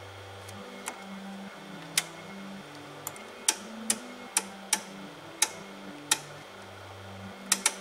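Oscilloscope selector knobs being clicked through their detents: about a dozen sharp, irregular clicks, with a quick run of three near the end.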